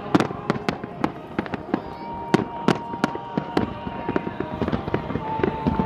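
Fireworks display: rapid, irregular bangs and cracks of bursting shells, several a second, with a steady high tone coming in about two seconds in.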